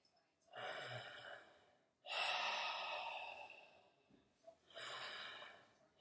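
A person breathing heavily through an open mouth: three long, noisy breaths, each starting sharply and fading off.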